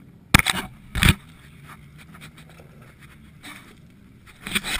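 Sharp knocks and scraping right at an action camera lying in the dirt: two close knocks early, then a flurry of knocks and rubbing near the end as the camera is bumped and handled.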